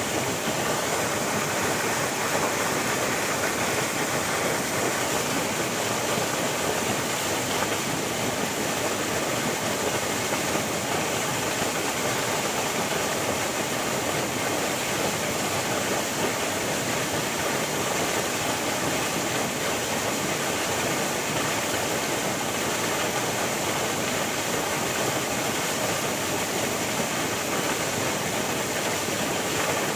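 River water flowing: a steady, even hiss that does not change.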